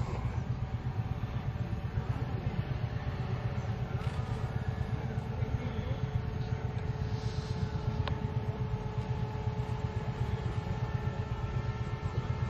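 A small engine running steadily, a low rumble that pulses rapidly and evenly, with a faint steady hum above it.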